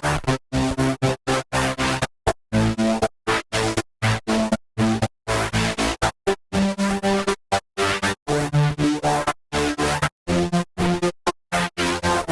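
Unfiltered Audio LION software synthesizer playing a choppy electronic sequence: short pitched notes of changing pitch, several a second, each cut off sharply into brief silence.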